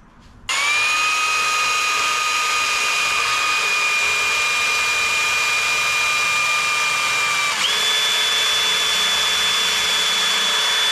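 Cordless drill spinning a carbide burr, grinding down a welded-on washer on the CV axle's midshaft carrier bearing plate so the bolt clears a heat shield. A steady high whine that winds up half a second in, jumps to a higher pitch about seven and a half seconds in, and cuts off at the very end.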